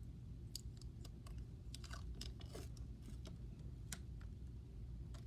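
Plastic bag and tape crinkling in hand in scattered small crackles and clicks as tape is pressed over the marble mesh, over a low steady hum.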